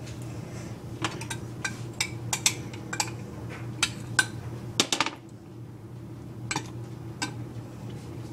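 About a dozen sharp, irregular clinks and taps of hard objects, bunched between about one and five seconds in, with two more near the end, over a steady low hum.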